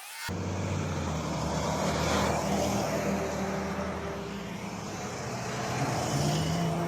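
Heavy trucks driving past, engines running with a wash of tyre and road noise; the sound comes in suddenly just after the start and stays loud.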